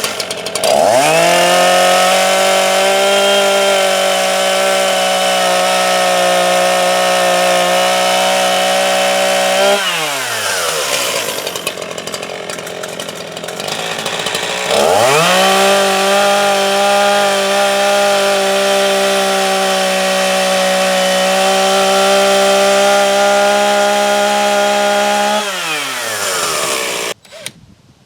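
Chainsaw cutting wood in two long bursts at high, steady revs, each about nine to ten seconds. It drops back to idle between them, and cuts off near the end.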